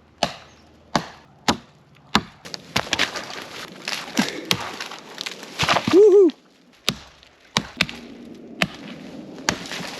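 Axe blows chopping into a dead standing tree, sharp single strokes every half second to a second. About three seconds in comes a stretch of dense cracking and crashing as the tree goes down, then a man's whoop and more axe strokes.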